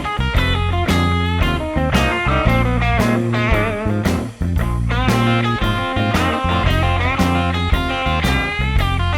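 Background music: a guitar-led track with a steady beat, dropping out for a moment about halfway through.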